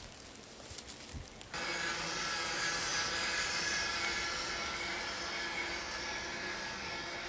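Steady whir of a homemade radio-controlled electric lawnmower's motor running. It starts abruptly about a second and a half in, after a few soft low knocks.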